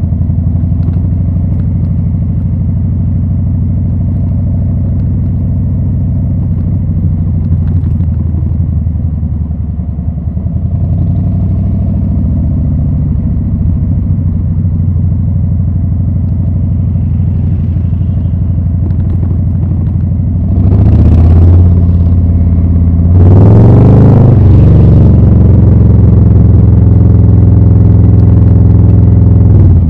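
2020 Harley-Davidson Low Rider S Milwaukee-Eight 114 V-twin through Rinehart slip-on exhausts, running steadily at low revs, then opened up hard twice about twenty seconds in, the revs climbing each time and the exhaust staying loud afterwards.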